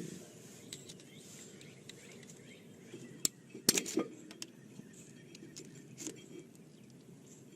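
A few scattered metal clicks and clinks from hand tools working on the brake caliper and its bolts. The sharpest comes a little past three seconds, a short cluster follows around four seconds, and one more comes about six seconds in, over a low steady background noise.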